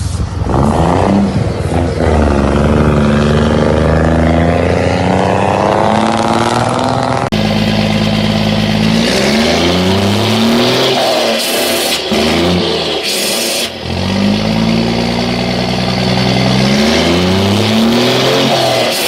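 Turbodiesel Mercedes-Benz truck engine revving up and down again and again, with a comb fitted in the turbocharger intake to make the turbo whistle and rumble. The sound changes abruptly about seven seconds in.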